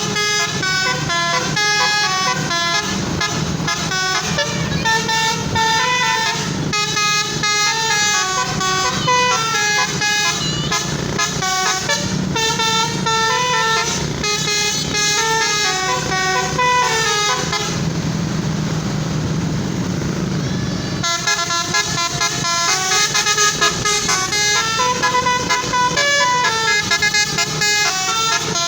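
Basuri multi-tone telolet horn on a bus playing a long melody of stepping horn notes, over a steady low rumble. The tune breaks off for about three seconds about two-thirds of the way in, leaving only a rushing noise, then starts again.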